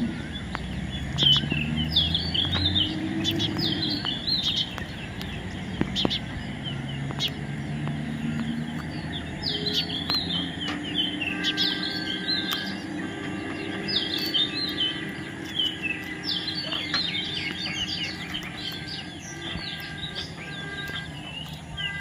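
Parakeets feeding on sunflower heads, calling in bursts of short, high, chattering chirps every few seconds.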